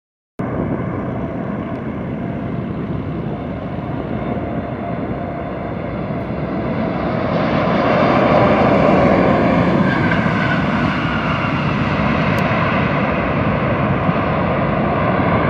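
A Boeing 747's four jet engines landing: a steady jet noise with a faint whine in it, growing louder as the airliner comes over the runway and touches down about eight seconds in, then staying loud through the rollout.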